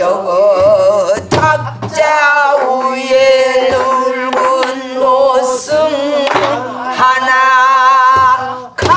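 A woman singing pansori in a husky, open-throated voice, holding long notes with a wide, wavering vibrato. A few sharp drum strokes from a buk barrel drum fall between the phrases.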